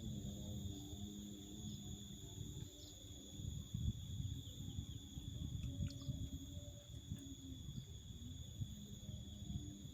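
Insects trilling steadily at a high, even pitch, over a low rumbling noise.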